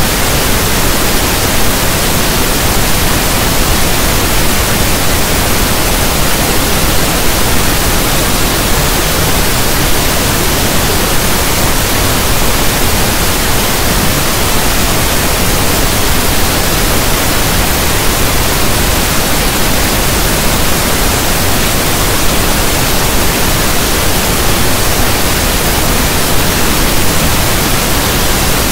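Loud, steady pink noise, electronically generated: an even, unchanging hiss like soft static from a radio not tuned to a station.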